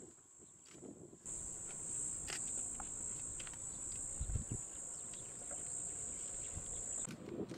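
Steady, high-pitched insect chirring that starts abruptly about a second in and cuts off suddenly near the end, with a brief low thump about four seconds in.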